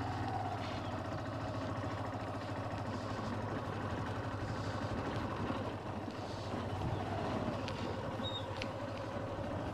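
Motorcycle engine running steadily as the bike rides slowly along a rough dirt track, its pitch rising and falling a little with the throttle.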